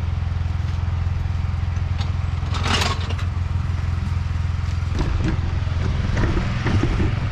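1971 John Deere 140 H1 riding mower's engine running steadily. A short hiss comes about two and a half seconds in, and there is some light clatter near the end.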